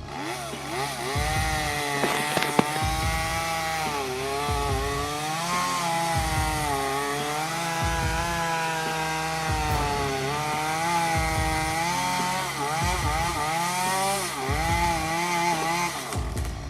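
Two-stroke chainsaw running under load, its pitch sagging and climbing again and again as it works through wood.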